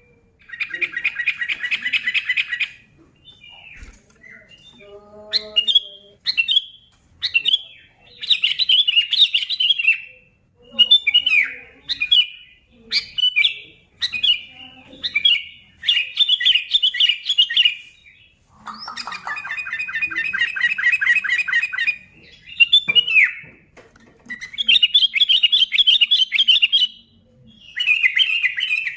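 Sooty-headed bulbul (kutilang) calling and singing excitedly: bursts of short, bright chirpy phrases separated by brief pauses, with two longer rattling chatters, one about a second in and one past the middle.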